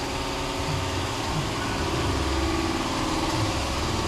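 An engine idling with a steady, even drone.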